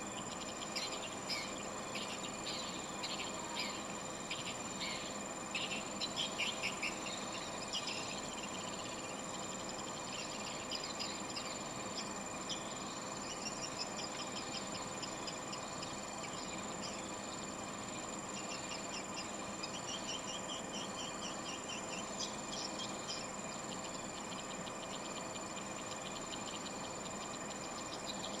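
Swiftlets twittering: repeated quick chirping trills over a steady high-pitched drone.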